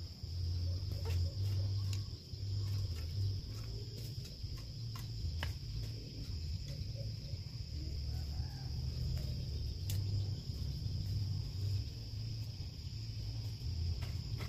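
Steady high insect drone over a low, stepping bass hum, with a few faint scattered clicks.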